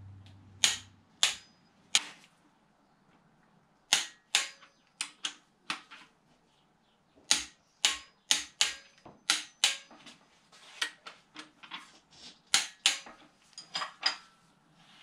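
Sharp, irregular clicks of a click-type ratchet torque wrench tightening the connecting-rod big-end bolts to specification, in short runs of a few clicks each with brief pauses between.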